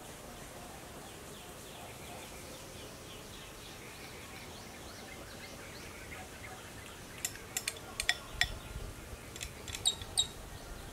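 A bird chirping in a quick repeated series, then a cluster of sharp, ringing clinks of a metal spoon against a bowl in the last few seconds.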